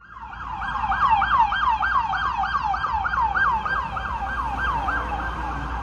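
Emergency-vehicle siren in a fast yelp, its pitch sweeping up and down about three times a second. The yelping stops about five seconds in.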